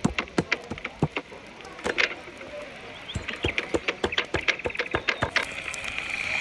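A meat cleaver chopping a raw whole chicken on a wooden board: sharp chops about three to four a second, with a short pause after the first second. Near the end, water poured from a kettle onto the chicken in a pan starts as a steady splashing.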